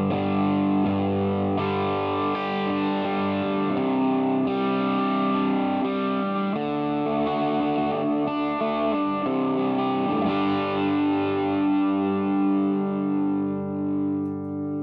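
Electric guitar played through a Mooer Green Mile overdrive pedal, a Tube Screamer clone, set to its Hot mode. Distorted chords and single notes ring out and change every second or two, and the last notes fade near the end.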